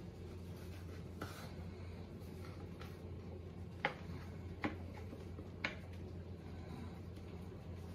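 Small knife cutting an apple on a cutting board: three sharp taps of the blade against the board, about four seconds in and twice more within the next two seconds, with a fainter tap about a second in, over a low steady hum.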